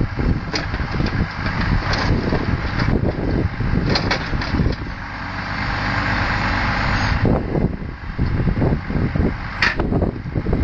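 A Volvo timber lorry's diesel engine runs steadily, driving the hydraulics of its Loglift crane as it loads logs. A few short sharp knocks come through, with a brief squeal near the end.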